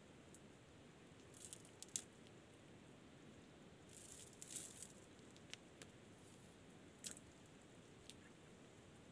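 Near silence broken by faint, scattered wet squishes and crackles from hands handling twine and soft mud. There is a cluster about a second and a half in, another about four seconds in, and single clicks later.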